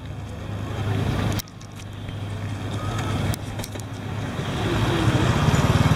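Street traffic noise: a low engine rumble that grows louder through the second half, with a few sharp clicks early on.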